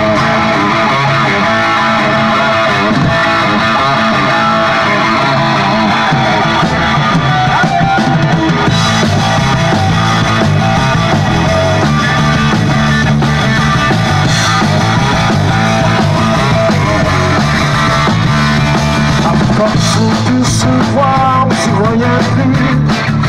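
Rock band playing live, with electric guitars, bass and drums.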